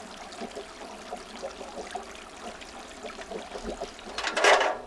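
Steady trickling of running water, with a brief loud rushing noise about four seconds in.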